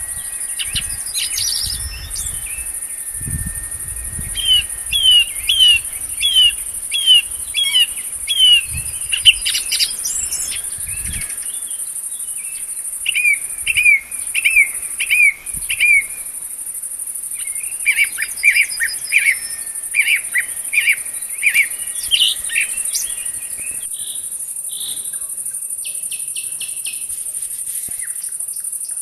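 A songbird singing runs of repeated, down-slurred whistled notes in several bursts, over a steady, high-pitched insect chirring that never stops.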